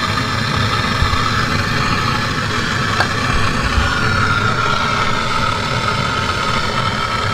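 A steady motor hum throughout, with a sharp click about three seconds in and a few dull knocks, as a wrench works the rusted bolts of an exhaust flange.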